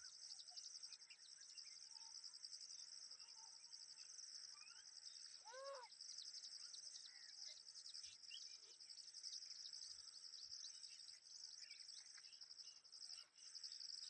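A steady, high, pulsing chorus of insects with scattered short bird chirps. One louder arching bird call comes about five and a half seconds in.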